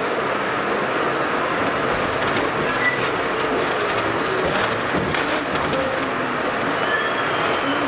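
R68 subway train running on the rails: a steady rumble with a few sharp clicks and short, faint, high wheel squeaks, one about three seconds in and another near the end.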